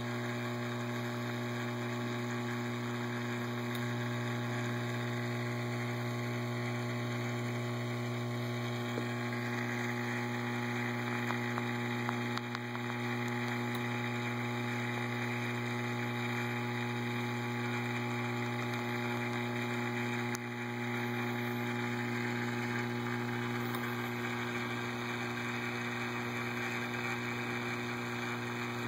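Steady electric hum of a reef aquarium's water pumps running, with a faint hiss over it.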